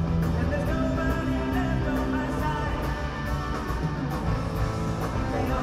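Rock band playing live through an arena sound system: a full band with a steady beat and sustained chords.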